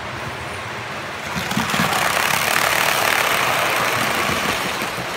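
HO-scale model train passing close by on the near track: a rolling noise of its wheels on the rails that swells about a second and a half in and eases off near the end.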